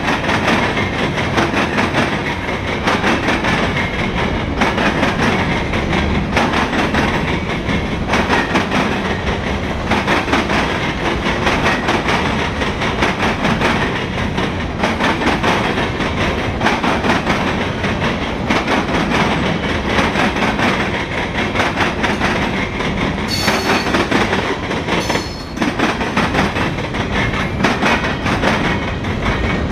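Freight cars of a passing train rolling by at close range: a steady rumble with a continuous clatter of steel wheels on the rails. There are two brief high squeals a few seconds before the end.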